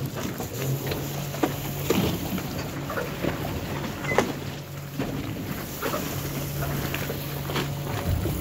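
A boat engine idling with a low steady hum that drops out briefly a few times, with water noise and scattered small knocks and splashes.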